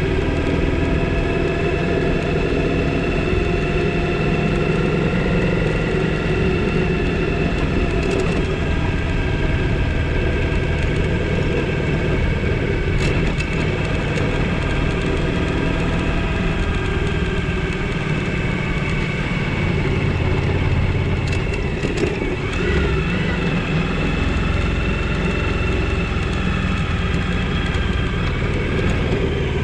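Suzuki V-Strom 1000's V-twin engine running under way on a dirt road, its note mostly steady and wavering a little with the throttle, over wind and road noise. A few sharp ticks stand out briefly.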